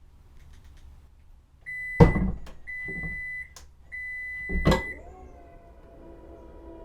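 A car's front trunk (frunk) being worked: two loud thunks about two and a half seconds apart, with a thin, steady high tone sounding on and off around them. About five seconds in, a steady hum with several pitched tones starts and holds.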